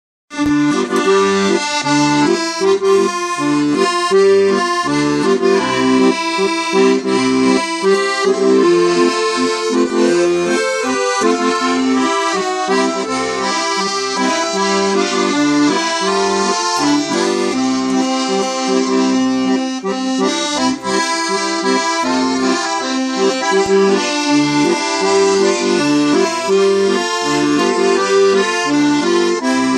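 Accordion playing a tune with a steady, regular bass-and-chord rhythm underneath, starting about half a second in.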